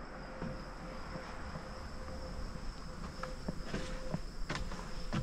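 Insects trilling steadily at one high, even pitch, with a few footsteps knocking on a wooden boardwalk in the second half.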